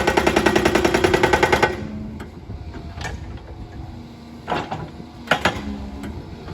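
Hydraulic breaker on a 20-tonne excavator hammering lumps of concrete in a rapid run of blows, about ten a second, that stops about two seconds in. Then a steady machine hum with a few separate sharp knocks.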